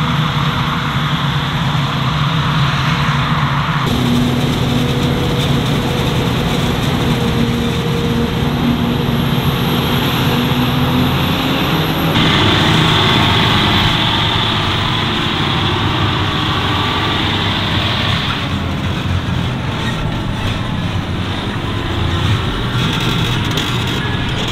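Heavy farm machinery running steadily, the engines of forage harvesters and tractors at work in a maize harvest. The sound changes abruptly at about 4 s and again at about 12 s.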